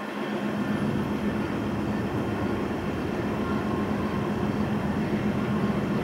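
Distant engine rumbling steadily with a low hum, swelling over the first second and then holding.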